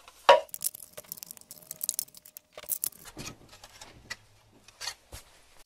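Hard plastic fingerboard ramp pieces clattering and knocking as they are handled and set on a wooden table: a run of short, irregular clicks and knocks, the loudest about a third of a second in.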